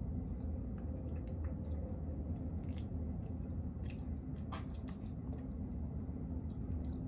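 A person chewing a mouthful of spaghetti, with small wet mouth clicks scattered through, over a steady low background hum.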